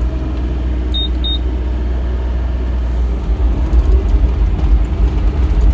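Bobcat E35 R-Series mini excavator's diesel engine running steadily as the machine travels on its tracks in two-speed, with two short high beeps about a second in as two-speed travel is engaged.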